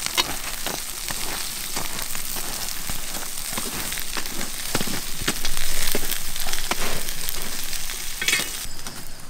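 Large fish sizzling as it grills on a wire grill, with many small pops and crackles over a steady hiss.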